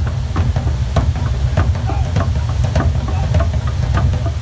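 A group of drummers beating tall standing drums in a quick, irregular rhythm of sharp strikes, several a second, over a heavy, steady low rumble.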